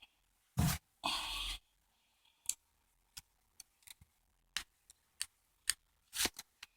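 Cardboard box and packaging being handled: a dull thump, a half-second scrape or tear just after it, then scattered light clicks and taps.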